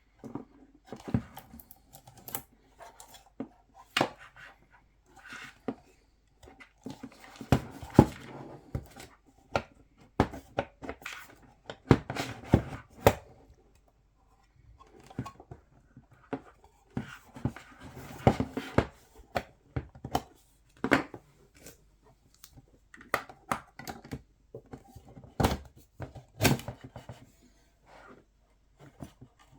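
Sheet-metal cover of a small PC power supply being worked at by hand: irregular clicks, knocks and scraping, with a short lull about halfway. The cover will not come off because one screw is still in place.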